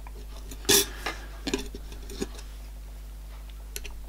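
Light metallic clinks and taps as a thin bronze ball-race plate is handled against a steel clutch sprocket and its studs: one sharper clink just under a second in, then several fainter taps.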